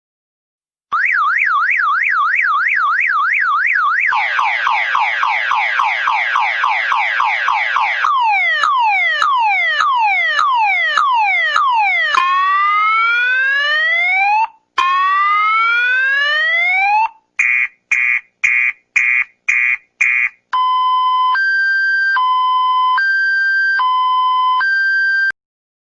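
Electronic car alarm siren cycling through its tone patterns: a fast warble, a faster sweeping wail, a run of falling chirps, two rising whoops, a string of quick beeps at about two a second, then a high-low two-tone. It starts about a second in and stops just before the end.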